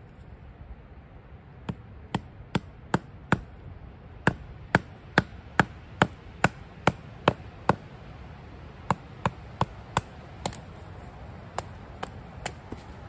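Batoning firewood on a stump: a wooden baton knocking a blade down through an upright stick to split it. About two dozen sharp knocks, two or three a second, in runs with short pauses, the first half louder.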